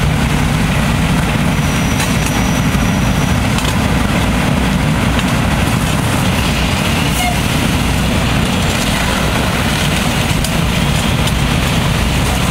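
Steady low rumble of fire engines' diesel engines running, driving their pumps to feed the hose lines.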